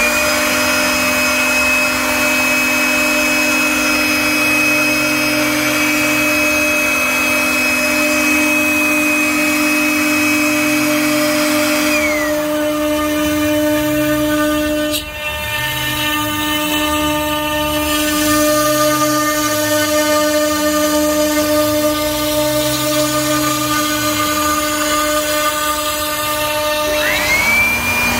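Woodworking power tool motor running with a steady high whine over a lower hum. The whine glides down about twelve seconds in, as the motor winds down, and glides back up near the end as it spins up again. Slow rising-and-falling low tones come and go every couple of seconds underneath.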